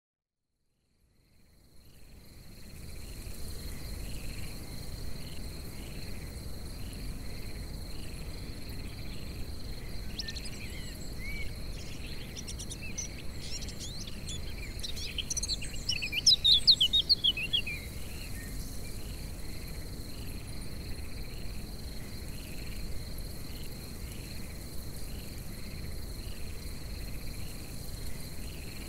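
Crickets trilling steadily, with a slower repeating chirp beneath, fading in over the first couple of seconds. From about 10 seconds in, a bird sings a burst of quick chirps, loudest around the middle, then falls back to the insects alone. A low rumble underlies it all.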